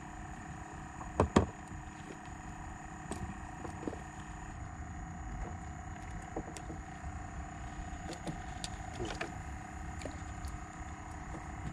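Handling noise from a small fishing boat and tackle: two sharp knocks close together about a second in, then scattered light clicks, over a steady faint hum.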